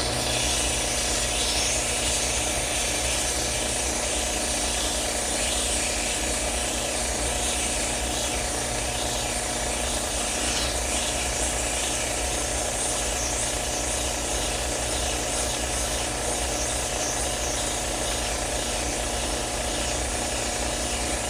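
Electric power tool running steadily for about twenty seconds with a constant motor hum, while coarse 80-grit abrasive rubs against a pilot bushing to take down its outside diameter.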